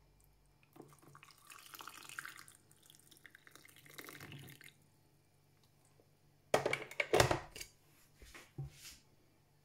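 Hot water poured from a kettle into a ceramic mug holding lemon slices and a metal spoon, running for about four seconds. A couple of seconds later comes a cluster of loud, sharp knocks and clinks, then a few softer ones.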